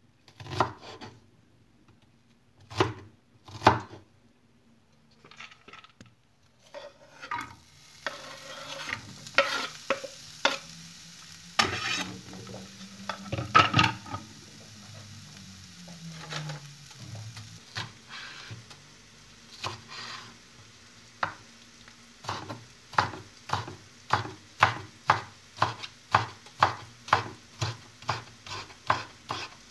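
A knife chopping onion on a wooden cutting board in a few separate strokes. Then diced onion frying in a non-stick pan with a steady sizzle and a couple of louder knocks of pan and utensil. From about two-thirds of the way through, even chopping at about two strokes a second.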